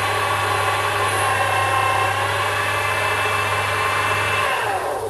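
Sherline micro lathe running with a steady motor hum and whine while a light finishing cut is fed on a bronze bush. About four and a half seconds in the motor is switched off and its whine falls away as the spindle spins down.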